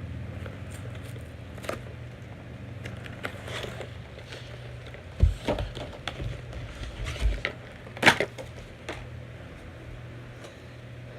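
Handling noise from a plastic action figure and its packaging: scattered clicks and knocks, with two louder knocks about five and eight seconds in, over a low steady hum.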